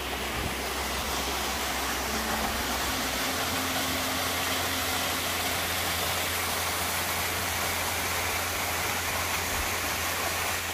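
Small mountain waterfall pouring into a rock pool: a loud, steady rush of falling water that stops abruptly at the end.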